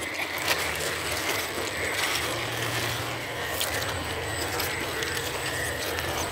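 Axial Ryft RBX10 1/10-scale electric RC rock bouncer's drivetrain whining steadily as it crawls over river rocks, with a few sharp clicks of the wheels and chassis knocking on stone.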